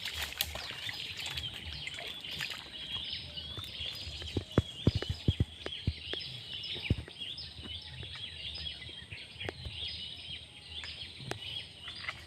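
Small birds chirping continuously in a swamp chorus. About halfway through comes a quick run of sharp clicks or knocks, the loudest sounds here.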